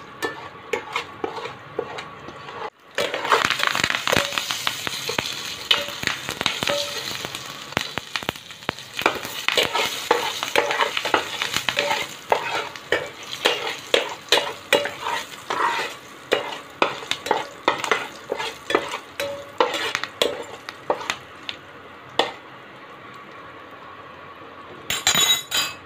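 Mustard seeds, asafoetida and curry leaves sizzling and crackling in hot oil in a pan while a spatula stirs them: a tempering being fried till golden. The crackling grows dense and loud about three seconds in, then thins out towards the end.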